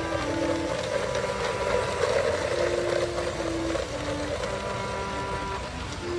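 A model train running past close by: the locomotive's motor and wheels on the track make a steady mechanical whirr and rattle, loudest about two seconds in. A background music melody plays throughout.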